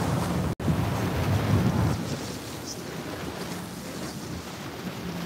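Wind buffeting the microphone over small waves washing against jetty rocks. The gusts ease about two seconds in, and the sound cuts out for an instant about half a second in.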